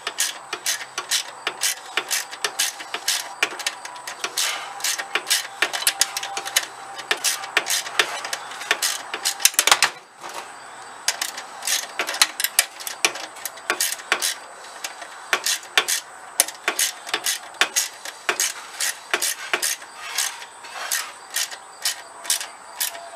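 Ratchet wrench clicking in quick runs of pawl clicks as it tightens the nut on a riding mower's steering shaft, seating a new steering bushing, with a short break about ten seconds in.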